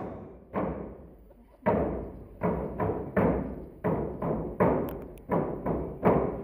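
Hand drums struck in a steady beat: a loud stroke about every three-quarters of a second with a softer one between, starting about half a second in.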